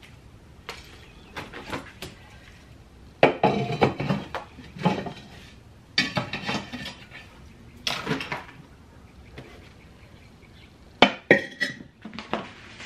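Flower pots and planters being lifted, set down and stacked on a shelf: scattered clinks, knocks and short scrapes in a handful of separate clusters, one or two seconds apart.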